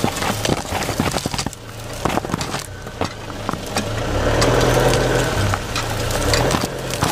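Underside of a Great Wall Hover H5 diesel SUV driving over an overgrown track: grass stalks and twigs brushing and clicking irregularly against the underbody and an underbody-mounted camera, over the low hum of the engine, which grows louder about four seconds in.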